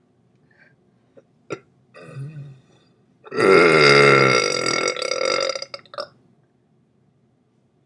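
A person's long, loud burp lasting about two and a half seconds, its pitch sliding down as it goes. A shorter, quieter burp comes just before it.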